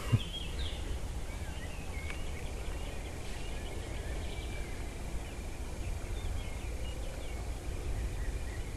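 Small birds chirping again and again in short quick notes over a steady low rumble, with a brief knock right at the start.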